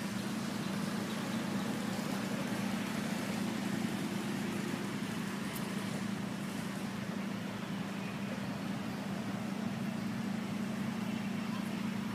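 Steady outdoor background noise: an unbroken low hum with an even hiss over it, and no distinct calls or knocks.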